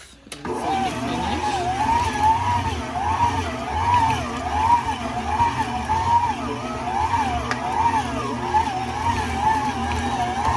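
Electric kitchen machine's motor kneading dumpling dough, its whine rising and falling in pitch about one and a half times a second as the dough turns and loads it. A low hum runs under the whine. The sound breaks off briefly at the very start, then resumes.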